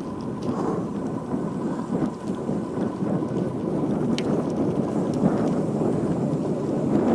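Wind rushing over the microphone of a camera on a moving road bike: a steady, low, rumbling noise, mixed with tyre noise on the paving.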